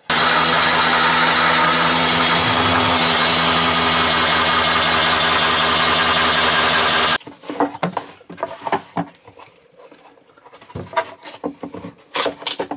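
Electric drill fitted with a hole saw running at a steady speed, cutting a hole through a narrowboat's cabin floor, for about seven seconds before it stops abruptly. After it stops there are scattered light knocks and clatters.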